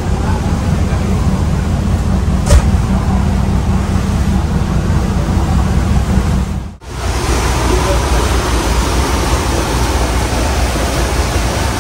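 Steady low drone of the ferry's diesel engines, with a broad rush of wind and sea. A sharp click sounds about two and a half seconds in, and the sound drops out briefly a little past the middle.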